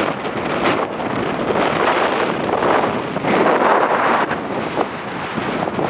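Wind gusting across the microphone: a loud, rushing noise that swells to its strongest about three seconds in.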